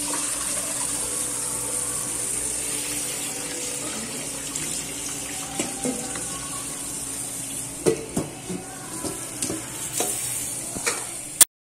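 Kitchen tap running into a stainless-steel sink as mussels are rinsed, the water splashing steadily. In the second half come several sharp clinks and knocks as the steel colander and bowl of mussels are handled.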